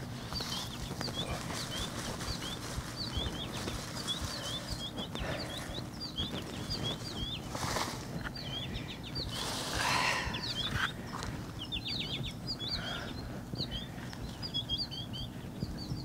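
Small birds chirping steadily in quick, short notes, over the rustle and scrape of gloved hands digging through loose garden soil. The rustling comes in a few brief bursts, the loudest about ten seconds in.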